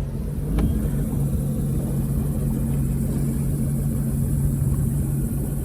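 Jet ski engine running steadily, a constant drone with water and wind noise over it, and one short click about half a second in.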